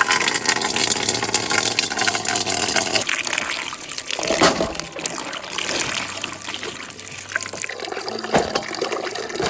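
Water running from a tap in a steady, splashing stream, a little louder about four and a half seconds in.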